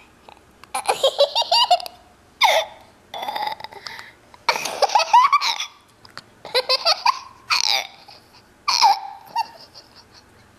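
A two-year-old toddler laughing in repeated fits of high-pitched giggles, several separate bursts with short pauses between them.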